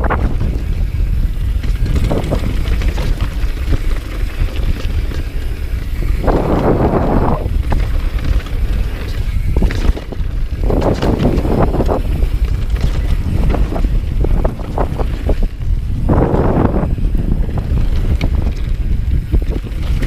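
Downhill mountain bike running fast down a dirt trail: wind buffeting the microphone, tyres rushing over the dirt in three louder surges, and short clattering over bumps.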